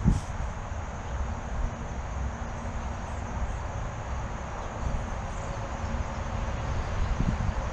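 Outdoor background noise: a steady low rumble and hiss with a faint steady hum, and one sharp click right at the start.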